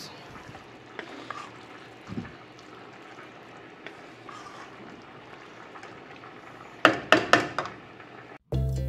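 Wooden spoon stirring a thick, simmering stew of beef and vegetables in an aluminium pot: quiet wet stirring with faint ticks. A few sharp knocks come about seven seconds in, and music starts just before the end.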